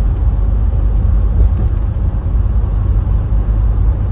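Dodge Ram 2500 pickup with its Cummins diesel, driving in traffic, heard from inside the cab: a steady low drone of engine and road noise.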